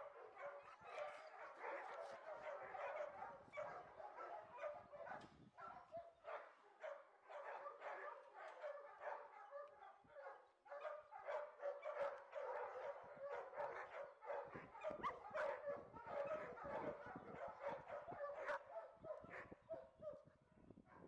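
Dogs barking and yipping without a break, many short barks overlapping one another.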